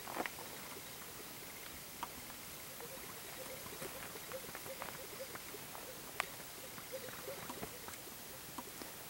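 Distant displaying male greater sage-grouse on a lek: many soft, scattered pops from the strutting birds over a steady hiss, with a few sharper clicks, the loudest about six seconds in.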